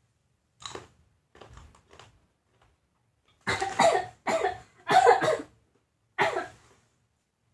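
Someone coughing: a couple of faint breathy sounds at first, then four loud coughs from about halfway in, the last after a short pause.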